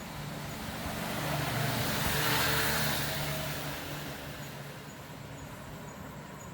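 A road vehicle passing by, its noise swelling up and fading away over a few seconds.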